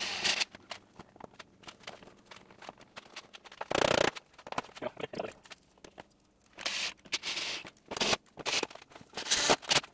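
Parts and hardware being handled by hand: scattered clicks and scrapes, with a few short rasping, tearing bursts, the loudest about four seconds in.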